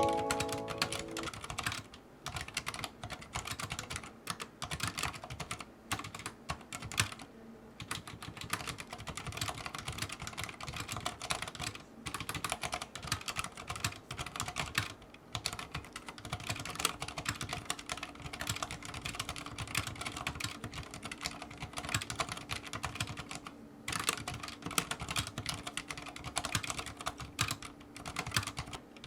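Continuous, fast, irregular typing on a Thinkway CROAD C604 mechanical keyboard with Cherry MX Silent Red linear switches and custom keycaps, with a few short pauses between bursts of keystrokes.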